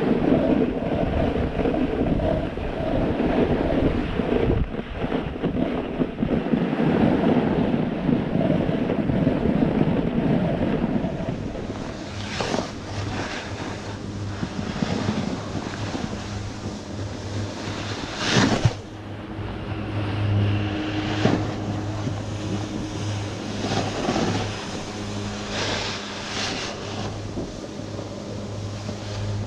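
Wind rushing over a camera microphone during a snowboard run, loud through the first third and then easing. A steady low hum follows, broken by a few short gusts.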